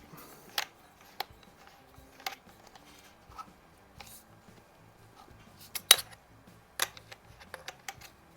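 Small metal parts and tools clicking and clinking as a thread adapter is worked off an air rifle's muzzle. The sharp clicks come at irregular intervals, the loudest about six seconds in.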